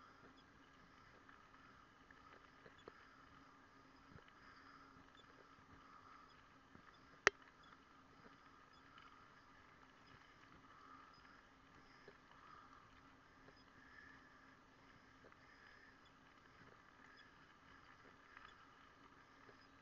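Near silence: a faint steady hum with scattered small ticks, and one sharp click about seven seconds in.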